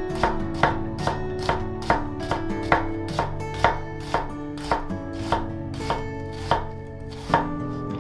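Kitchen knife chopping on a cutting board, an even run of sharp strokes about two to three a second, stopping about seven and a half seconds in. Background music with sustained tones plays underneath.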